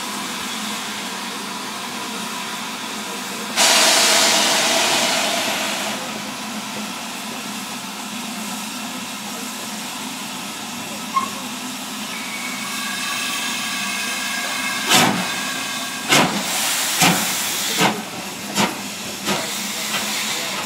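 Steam locomotive No. 73096, a BR Standard Class 5 4-6-0, hissing steam from its open cylinder drain cocks, with a much louder rush of steam for about two seconds a few seconds in. Near the end, its exhaust beats come in slowly, a sharp chuff roughly every second, gradually quickening as it moves off.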